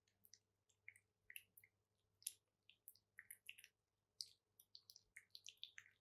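Domestic cat licking: faint wet tongue clicks and smacks, coming irregularly several times a second.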